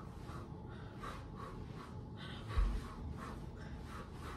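Faint breathing and shuffling movement in a quiet room, with one dull low thud a little past halfway: a foot landing on the floor as the girl dances.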